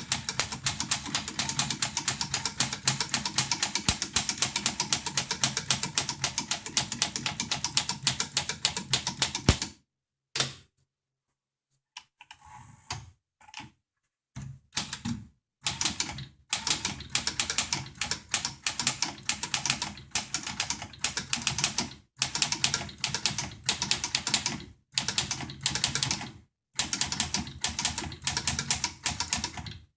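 Typing on a 1935 Smith Corona Silent manual typewriter: a fast, steady run of key strikes, then a pause about ten seconds in with a few faint mechanical sounds, after which typing resumes in short bursts separated by brief gaps.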